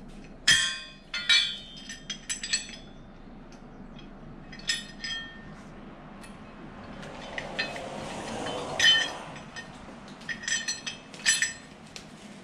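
Steel brackets and bolts of a Grasshopper snow blower attachment clinking and ringing as they are handled and fitted together, a dozen or so sharp metallic clinks, with a scraping rustle around the middle.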